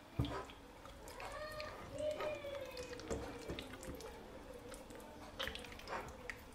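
Hands massaging a wet marinade into the skin of a whole raw chicken in a bowl: soft wet squelches and smacks, with a sharper smack just after the start.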